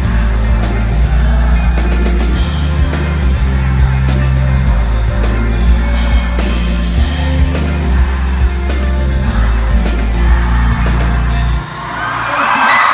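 Live band playing through a PA: sung vocals over electric guitars, heavy bass and drums. The song stops about a second before the end, and the crowd cheers and screams.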